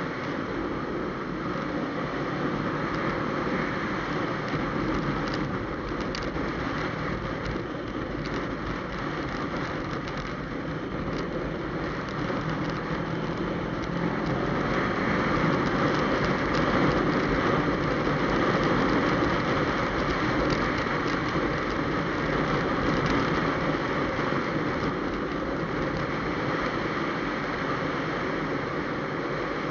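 Motorcycle riding at highway speed: a steady rush of wind and road noise with the engine underneath. It gets louder about halfway through.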